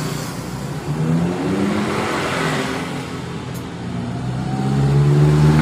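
A motor vehicle engine nearby accelerating, its pitch rising in a couple of steps, then running steady and growing louder toward the end.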